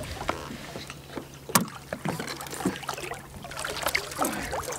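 Water splashing against the side of a small boat as a big skate is let go and the jig is lifted out, with scattered clicks and knocks from handling the line and tackle. One sharp click comes about a second and a half in.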